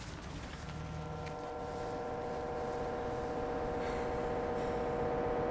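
A sustained drone of several steady held tones, swelling slowly and evenly louder, over a low rumble of wind.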